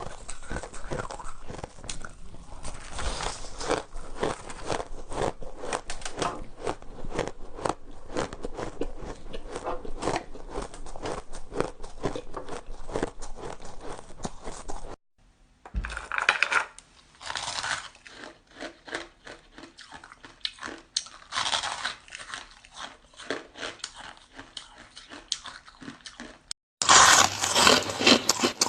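Close-up biting and crunching of shaved ice: a dense run of crisp crunches, a brief break, then sparser bites, and a louder stretch of crunching after an abrupt cut near the end.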